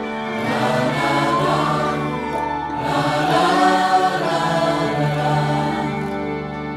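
Background music with voices singing long, held notes in a choir-like sound.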